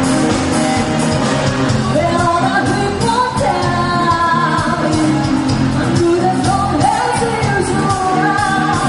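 Rock band playing with a singer: a steady drumbeat under bass and guitars, with held, wavering sung lines over the top.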